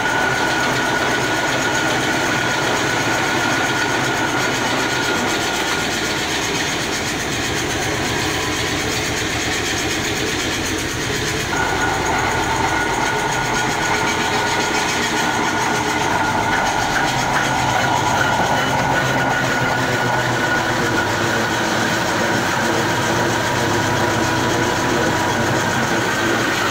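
A rotary veneer peeling lathe runs as its knife peels a continuous thin sheet from a spinning poplar log. The sound is a steady machine whine over a dense rattling clatter. The higher whine fades for a few seconds midway, then comes back.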